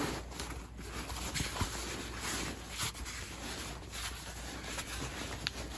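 Fabric rustling and rubbing as a flexible body armor panel is pushed and squeezed into a backpack's padded compartment, with a few soft knocks along the way.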